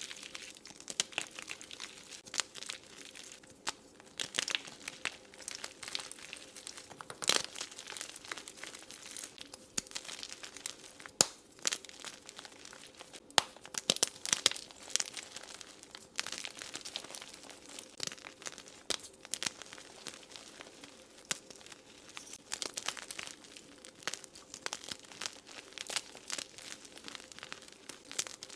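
Gym chalk being crushed and crumbled, an irregular run of crisp crunches and crackles with a few sharper snaps.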